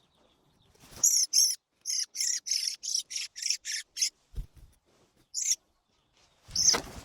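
Bird, in a thrush-hunting setting, giving a rapid run of about a dozen short, sharp high calls, roughly three a second, then one more call about a second and a half later. A low thump comes in the pause, and a louder noise starts near the end.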